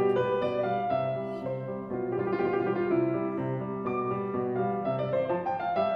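Background piano music, a melody of struck notes.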